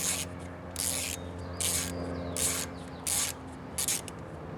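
Ratchet wrench being worked back and forth to loosen small screws, its pawl clicking in a short burst on each back-stroke, about six strokes.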